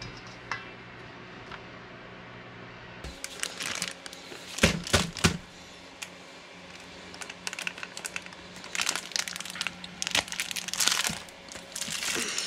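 Plastic zip-top freezer bag crinkling and crackling in irregular bursts as it is handled, filled with apricot halves and pressed flat to seal. A few sharp crackles about five seconds in are the loudest part.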